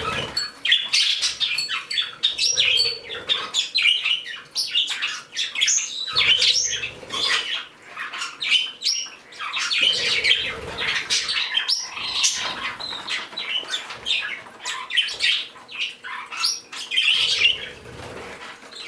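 A room of pet birds, budgies, Bourke's parakeets and a canary, chirping and chattering continuously, many short high calls overlapping.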